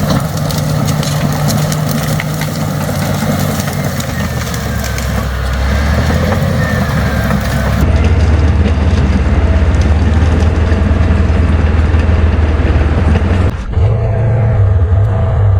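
A 200 hp crawler bulldozer's diesel engine running steadily as the machine works its way along the trail, with crackling noise over the first half. The sound changes abruptly twice, about 8 and 13.5 seconds in.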